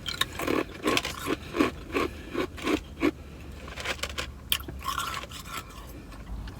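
Ice being crunched between the teeth: a quick run of crunches about three a second, then slower, sparser crunches in the second half.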